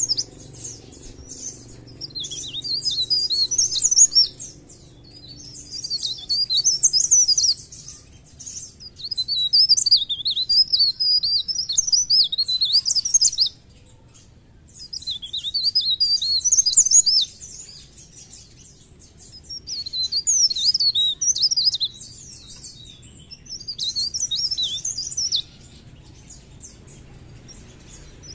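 Cikrak daun (blerengan), a caged leaf warbler, singing hard: a series of rapid, high twittering phrases, each a few seconds long, with short pauses between them.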